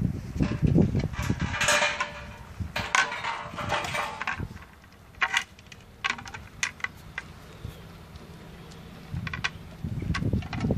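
German Shepherd puppies scuffling together on a concrete path: scrapes and scattered sharp clicks, with low bumping near the start and again near the end.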